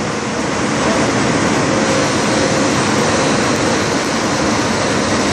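A 10-colour rotogravure printing press running in production: a loud, steady mechanical rushing noise with a faint hum.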